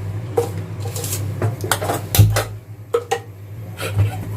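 Metal kitchen utensils clinking and knocking against a cooking pot, about half a dozen sharp strikes with one heavier knock around the middle, over a steady low hum.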